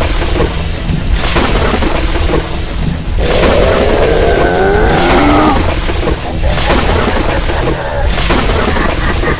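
Cartoon lightning-strike and thunder sound effects crashing about every two seconds over background music, with a long falling dragon roar in the middle.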